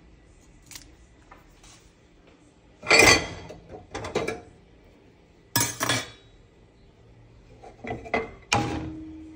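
Kitchen clatter of a metal slotted spatula, a ceramic plate and a pan knocking together. There are four or so sharp clinks and scrapes, the loudest about three seconds in, and the last rings briefly.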